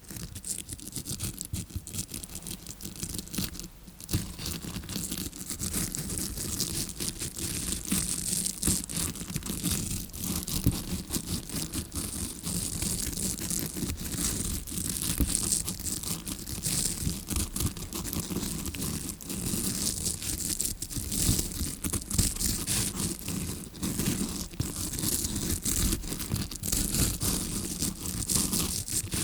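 A tawashi scrubbing brush scratching and scrubbing close against a microphone, a dense crackly scrape meant to imitate ear cleaning heard from the eardrum side. It starts suddenly, with a brief lull about four seconds in.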